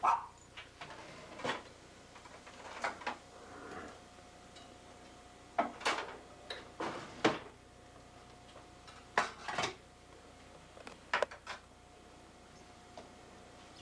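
Kitchen clatter of dishes, utensils and a drawer being handled: scattered sharp knocks and clinks coming in small bunches.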